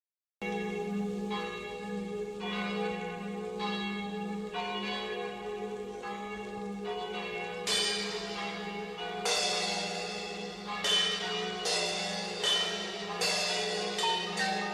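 Chiming bells ringing out a slow melody over a steady low drone. From about eight seconds in the strikes come brighter and faster.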